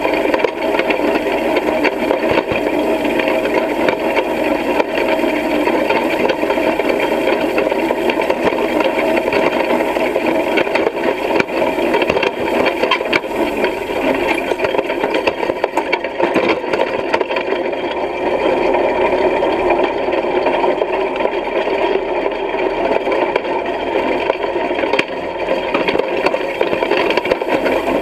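Hay rake rattling and clattering steadily as it is pulled through the field, its tines and frame shaking as it rakes hay.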